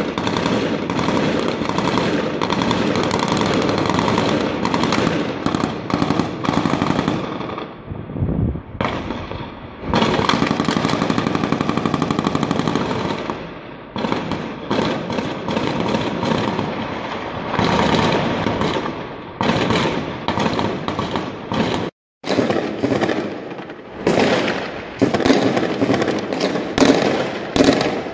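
Sustained automatic gunfire: long, dense runs of rapid shots many per second, easing briefly about a third of the way through and getting sharper near the end.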